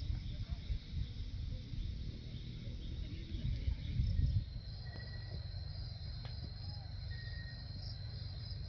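Crickets chirring steadily in a high band, with a low rumble on the microphone that eases about four and a half seconds in.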